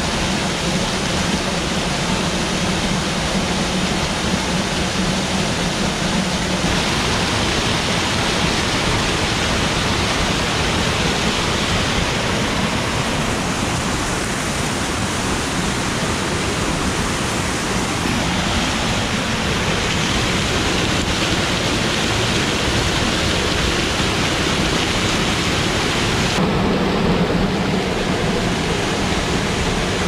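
Waterfall rushing steadily, its tone shifting a few times.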